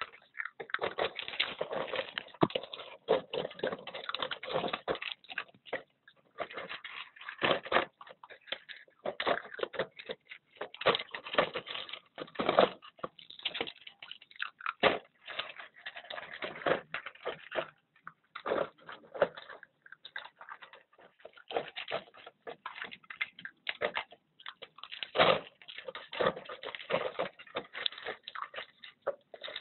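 Puppies feeding from a plastic bowl: irregular chewing and clicking noises, with short gaps.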